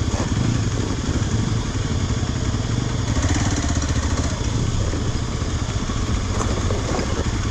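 Single-cylinder engine of a Hero Xpulse 200 dual-sport motorcycle running steadily as it rides slowly over a rocky dirt trail, heard close up from the bike itself. Other motorcycles' engines are running just ahead.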